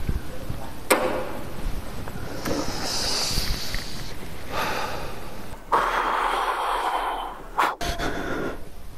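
A man's breathing as he draws on a cigarette and blows out the smoke, with a stronger exhale about six seconds in.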